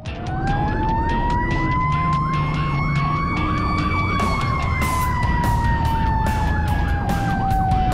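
Fire engine siren wailing, heard from inside the cab. Its pitch climbs for about four seconds, then slides slowly down, with a faster chirping siren tone beneath it and the truck's low engine rumble.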